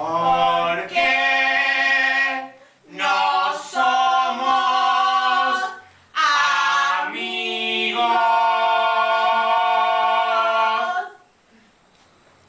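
Unaccompanied singing in long held notes: three phrases, the last held about five seconds, breaking off about eleven seconds in.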